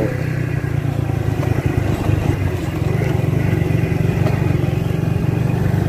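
Motorcycle engine running steadily while riding, a low even drone that eases off just after the end.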